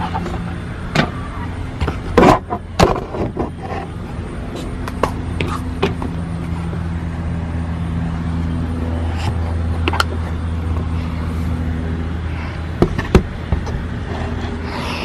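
A steady low mechanical hum runs under the clicks, crinkles and knocks of a toy's cardboard and plastic packaging being handled. The packaging sounds are loudest about two to three seconds in. Two sharp knocks come near the end.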